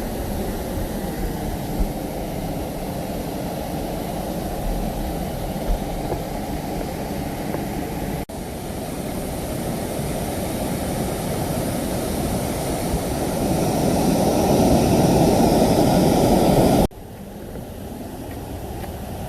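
Waterfall's steady rush of falling water. It cuts off briefly about eight seconds in, builds louder over the next several seconds, then drops abruptly to a quieter rush a couple of seconds before the end.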